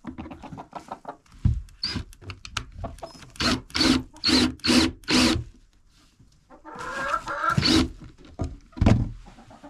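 A hen clucking and squawking loudly in a quick run of short calls, with a longer drawn-out call about seven seconds in.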